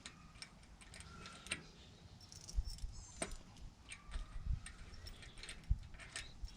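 Small metallic clicks and clinks as the bolts of a manual locking hub are handled and lined up in the hub, with a few dull bumps.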